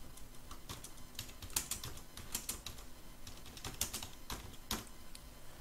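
Typing on a computer keyboard: an irregular run of key clicks as a short title is typed.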